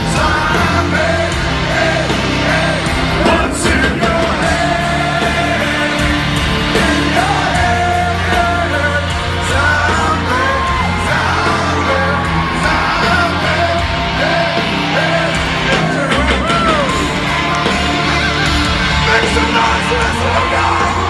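Live heavy metal band playing loud and continuous, with singing and yelling voices over the guitars and bass, heard from within the concert crowd.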